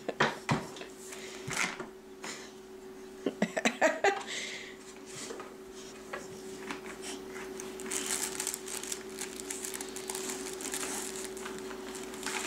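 Handling noises of a fabric baby book on a wooden floor: a few light knocks and clicks in the first few seconds, then rustling as a dog noses and mouths the book in the last part, over a faint steady hum.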